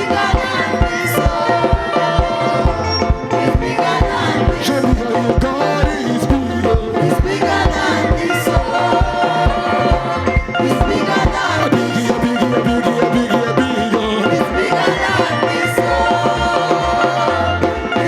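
Upbeat church praise-and-worship music with a steady, fast drum beat and percussion under pitched instruments.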